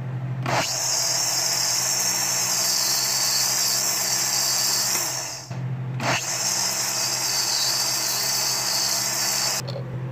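Electric blender grinding soaked rice in a little cold milk into a paste. It runs in two goes, about five seconds and then about three and a half, with a brief stop between.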